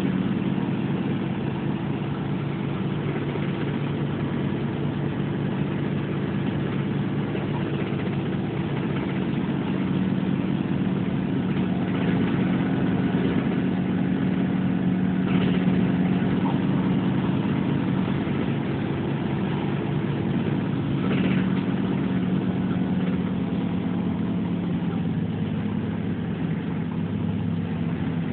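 Steady engine drone and road noise heard from inside a moving city bus cruising on a highway. The engine note drops slightly near the end.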